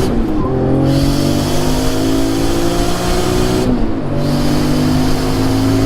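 Turbocharged 2JZ-GE inline-six in a 240SX pulling hard under full acceleration, its pitch climbing steadily in each gear, with an upshift near the start and another about four seconds in.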